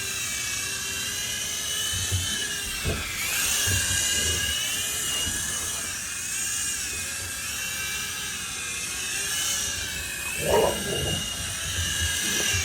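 Small infrared toy helicopter (GPToys Durant X-Copter) whining in flight, its electric motors and rotors rising and falling in pitch as the throttle changes. A few short low thumps are heard, the largest about ten and a half seconds in.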